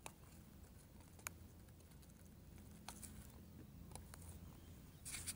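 Near silence: a faint low rumble with a few scattered soft ticks, and a brief scuffling rustle near the end.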